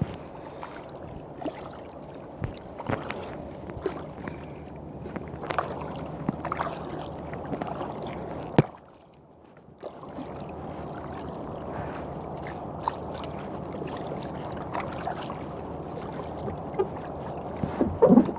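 Kayak paddling: the paddle dips and splashes, and water laps against the hull, with scattered small knocks. The sound cuts out briefly after a sharp click about nine seconds in, and a louder splash comes near the end.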